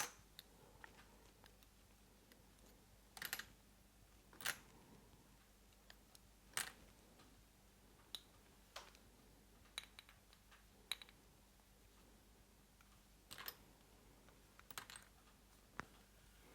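Scattered sharp clicks and taps, about a dozen at uneven intervals, as cam followers are pulled out of a Moki 215cc radial engine and handled.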